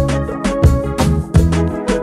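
Background music with a steady beat: a drum hit about every three-quarters of a second under sustained instrumental notes.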